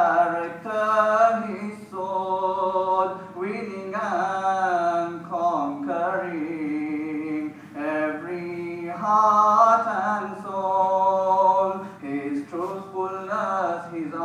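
A man singing a nasheed, long held notes with ornamented bends in pitch, broken by short breaths between phrases.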